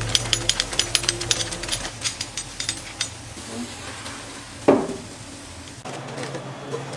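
Wet crackling and sizzling as a sauce mop is daubed over ribs on a hot smoker grate, fading to a soft hiss. About four and a half seconds in comes one loud metal clank as the smoker's rack of ribs is pulled out.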